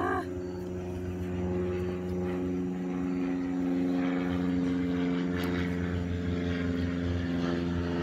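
A steady engine or motor drone, running at an even pitch throughout.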